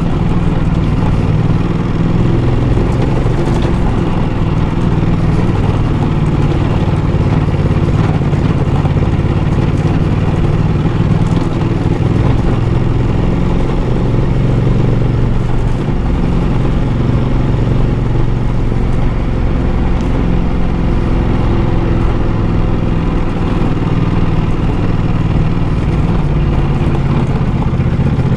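Ducati Multistrada motorcycle engine running at steady revs while riding slowly over a gravel dirt road, with a faint clatter of loose stones under the tyres.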